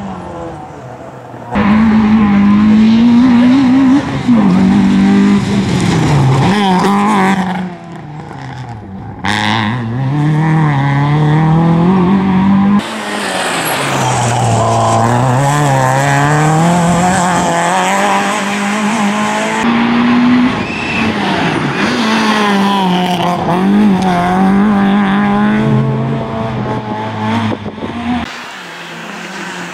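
Peugeot 106 16V rally car's four-cylinder engine revving hard on a special stage. The engine note climbs and falls again and again as the car accelerates, shifts gear and lifts for corners. The sound jumps abruptly a few times where one pass cuts to the next.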